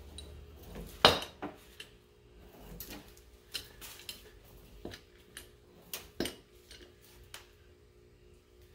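Scattered sharp metallic clinks and knocks from a hydraulic porta power ram being worked against the rusted, crushed-in cab floor of a 1978 Ford F-150, the loudest about a second in and another about six seconds in.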